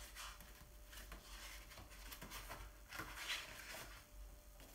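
Quiet room tone with faint rustling and rubbing of a paperback picture book being handled and opened, the clearest rustle about three seconds in.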